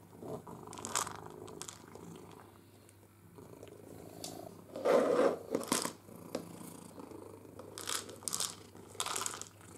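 A ginger cat purring steadily and low while pushing a hollow plastic ball feeder, which knocks and clatters on a wooden floor a number of times. The loudest knocks come about halfway through.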